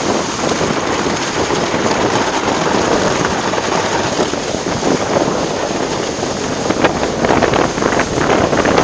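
Wind buffeting the microphone in a steady loud rush, with a few sharper crackles in the last couple of seconds.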